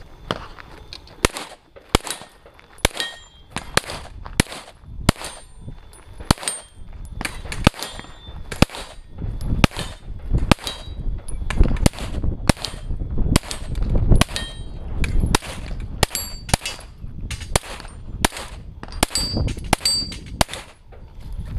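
A string of single pistol shots, one every second or less, many followed by a brief metallic ring from steel targets being hit.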